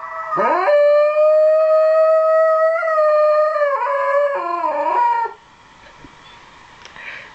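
Shetland sheepdog howling: a rising swoop into one long, steady howl, which then wavers and breaks into falling notes before stopping about five seconds in.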